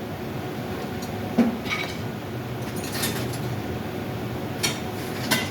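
Scattered metallic clinks and knocks of tools and metal parts being handled during work on an air handling unit blower, over a steady low hum.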